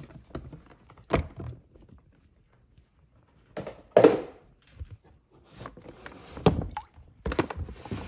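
Hollow knocks and thuds of plastic containers being handled and set down: a handful of separate knocks a second or two apart, the loudest about four seconds in.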